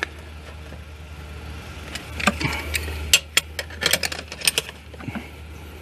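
Irregular metallic clicks and taps of a hose clamp being fitted and snugged onto the intake coupler hose at the throttle body, clustered in the middle few seconds.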